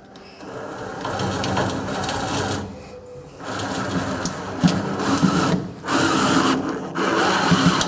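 Cordless drill driving a self-tapping screw into the thin steel frame of a fireplace mason's form, running in four stretches with short stops between.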